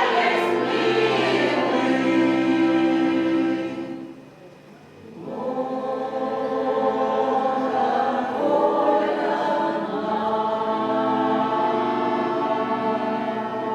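A Russian folk-song choir singing in held chords. The singing breaks off briefly about four seconds in, then returns with long sustained notes that ease off slightly near the end.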